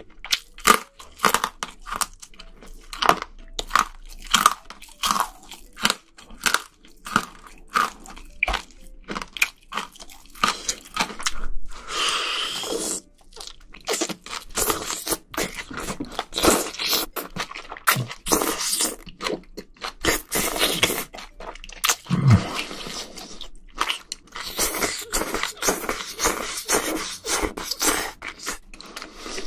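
Close-miked eating: a person chewing and biting with crisp crunches and wet mouth smacks, and noodles slurped in a few longer noisy pulls, the first about twelve seconds in.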